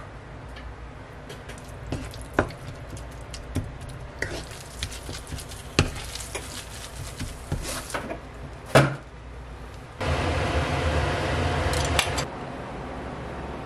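A wooden spatula scraping and tapping a non-stick wok while stir-frying rice with chopped leftover cheese dakgalbi, over a low sizzle. About ten seconds in, a louder, even sizzling starts and cuts off about two seconds later.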